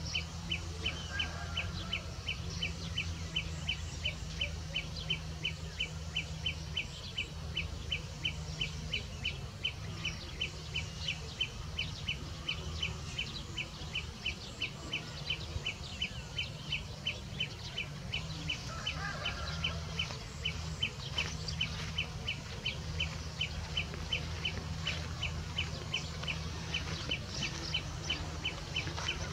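A high, short chirp repeated evenly about three times a second, without a break, over a low steady hum.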